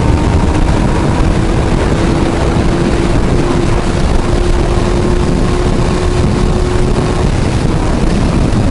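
Kawasaki Z1000's inline-four engine pulling hard under acceleration, its note climbing slowly, under heavy wind rush on the microphone. The engine note ends about seven seconds in, leaving the wind.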